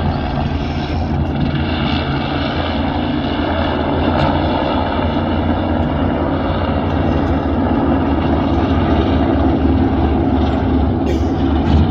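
A helicopter flying low over the water, its rotor and engine running steadily alongside the engines of offshore powerboats racing past, the whole sound slowly growing louder.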